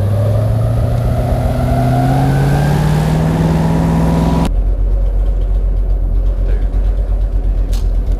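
Boat motor speeding up, its pitch rising steadily, then cut off abruptly about halfway through. A steady low rumble follows, with a faint click near the end.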